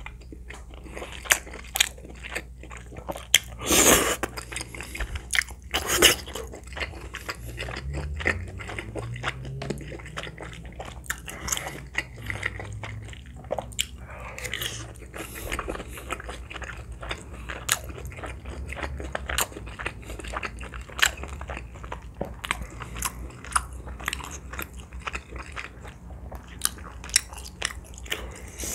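Close-miked eating sounds: chewing of soft, chewy rice cakes and crunching bites into crispy fried chicken coating, with many sharp wet mouth clicks and a couple of louder slurping or crunching moments in the first several seconds.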